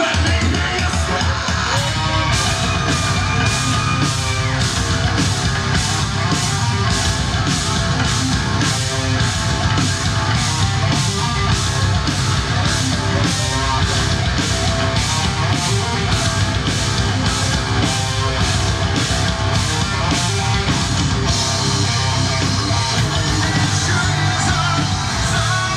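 Heavy metal band playing: distorted electric guitar, bass guitar and drums, with the drums striking a steady beat about twice a second for most of the stretch before the pattern changes near the end.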